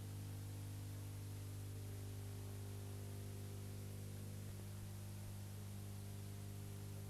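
Steady low electrical hum with a faint hiss underneath, unchanging throughout.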